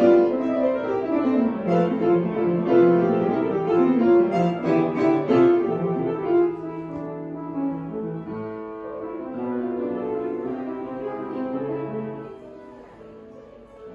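Background music led by piano, a run of distinct notes that grows softer after the middle and quieter still near the end.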